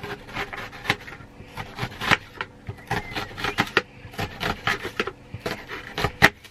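Kitchen knife dicing an onion on a plate: an irregular run of sharp cuts and taps, several a second, as the blade goes through the onion and meets the plate.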